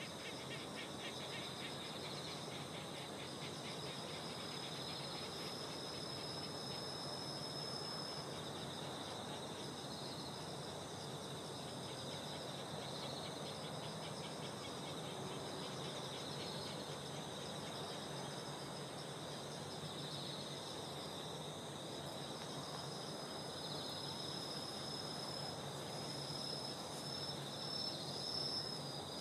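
Crickets and other insects chirping in a steady chorus. A high trill swells and fades every few seconds, over a faint even background hum.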